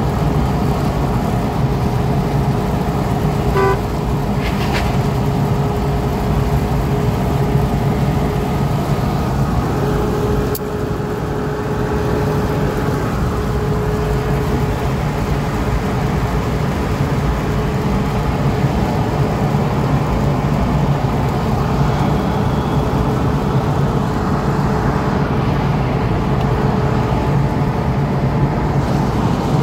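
Steady road and engine noise inside the cabin of a car moving at highway speed, with a constant low hum. A few short clicks come about four seconds in and again near ten seconds.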